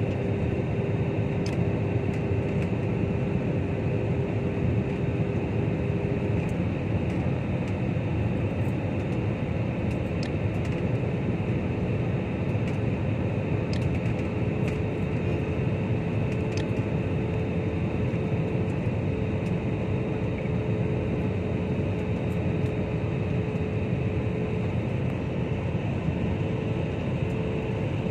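Steady cabin noise of an airliner in flight, heard from a window seat over the wing: a constant rush of engine and airflow noise with a steady hum that shifts slightly up in pitch about six seconds in.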